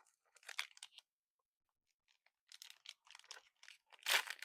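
Foil Magic: The Gathering booster pack wrapper crinkling and being torn open by hand, in short rustling bursts with a pause in the middle and the loudest crackle near the end.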